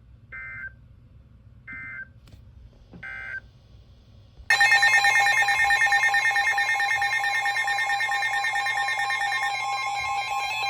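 Emergency Alert System data signal: three short, high, buzzing bursts about a second apart, the end-of-message code closing the previous alert. About four and a half seconds in, a loud, steady two-tone attention alarm starts and holds, announcing the next alert.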